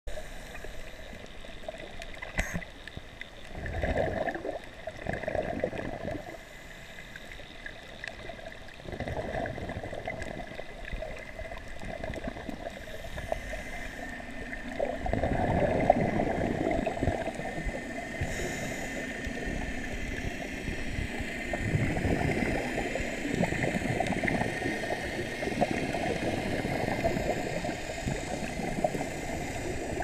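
Underwater sound of scuba divers' regulators: gurgling exhaled bubbles coming in bursts every few seconds over a steady underwater hiss.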